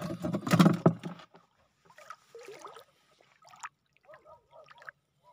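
Water splashing and sloshing close to the microphone in shallow tidal water, loudest in about the first second, then only faint scattered sounds.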